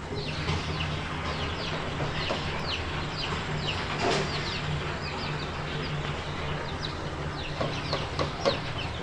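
Chickens, likely chicks, cheeping: many short, high, falling peeps over a steady low hum.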